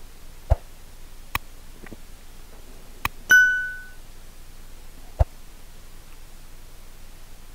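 A click, then a short bell-like ding that rings for about half a second: the sound effect of a subscribe-button animation. A few short knocks come before and after it.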